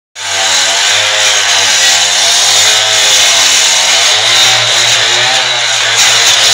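Petrol cut-off saw (disc cutter) with a water-fed blade cutting into a concrete wall: the engine runs steadily under load, its pitch wavering slightly, beneath a loud hiss of the blade grinding through concrete.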